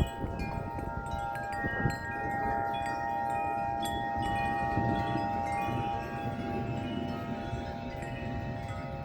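Several wind chimes ringing in gusty wind, many overlapping sustained metal tones struck again and again, with low wind rumble underneath.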